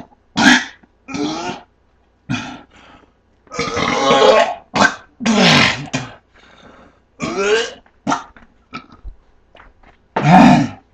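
A man belching over and over: about a dozen loud burps in quick succession, the longest about a second each, his stomach full of Sprite and bananas.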